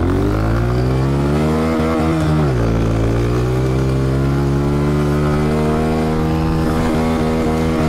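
Honda CRF125F's single-cylinder four-stroke engine pulling hard under throttle: revs climb, drop sharply at an upshift about two and a half seconds in, then climb steadily again in the next gear.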